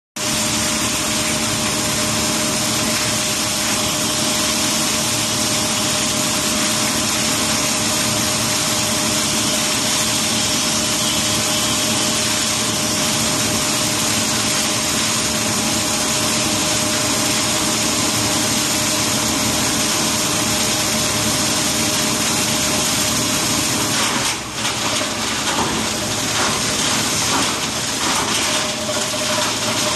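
Industrial clothes crusher running steadily with a constant hum and whine. About 24 seconds in the sound dips briefly, then turns uneven with short knocks and rattles.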